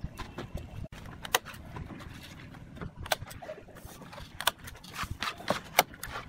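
Thin steel reinforcing rods clinking and tapping against each other as they are handled and laid out by hand: about five sharp clinks at irregular intervals, with light scraping between them.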